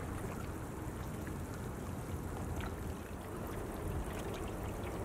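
Steady harbour ambience: an even rushing noise of water and wind with a low rumble and light scattered ticks.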